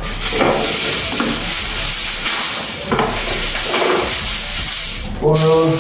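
Aluminium foil being handled and crinkled, a continuous crackling rustle that stops about five seconds in.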